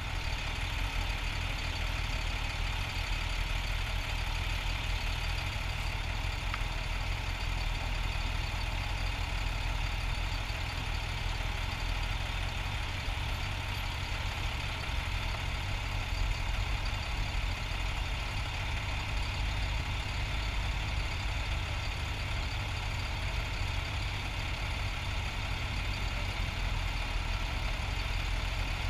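Motorcycle engine running steadily, holding the same pitch and level throughout, with traffic noise around it.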